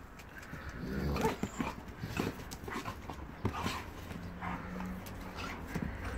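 A German Shepherd and a five-month-old Akita puppy play-fighting, with short whimpering and yipping calls and many brief scuffling noises throughout.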